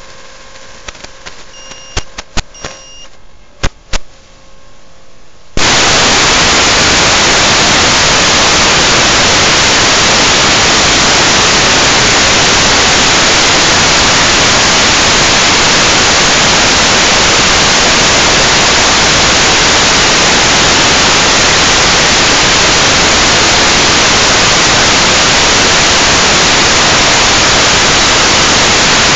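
Loud, steady static hiss from an FPV drone's analog video link. It starts abruptly about five and a half seconds in, when the video signal is lost and the receiver's audio channel fills with noise. Before it there is faint intermittent beeping and a few sharp clicks.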